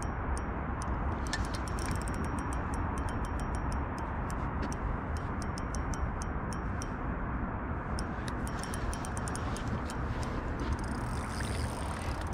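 Size-2500 spinning reel clicking in quick irregular runs while a bass is played on light 8-pound line, over a steady rushing noise.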